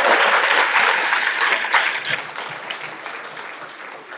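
Audience applauding, a dense patter of many hands clapping that dies away over the last two seconds.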